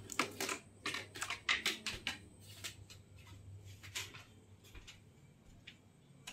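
Irregular sharp clicks and taps, close together for the first three seconds and then only now and then, over a low steady hum.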